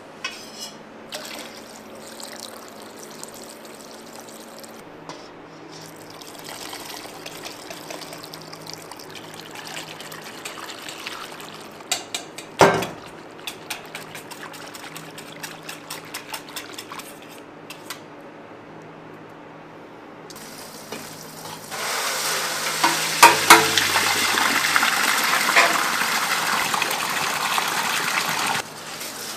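Stainless steel mixing bowls and utensils knocking and clinking, with one loud clank about halfway through followed by a run of quick ticks as the batter is worked. Then a loud, steady hiss lasting about six seconds as a white granular ingredient is poured in a stream onto a heap, stopping abruptly.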